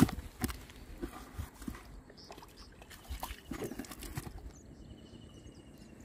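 Fish knocking and flapping against the inside of a plastic bucket as a hooked catfish is lowered in on its line. A sharp knock comes at the start, then scattered light taps.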